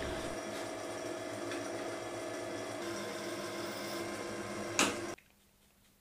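Bench drill press spindle and motor running steadily with a constant whine while cutting a slot in brass flat bar. There is a brief louder rasp just before the sound stops abruptly about five seconds in.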